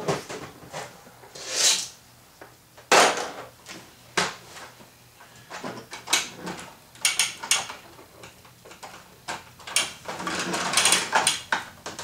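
Hard plastic toy parts being handled and fitted together: the red plastic cage being pressed onto the Roton toy vehicle, with scattered clicks and knocks, the sharpest about three seconds in.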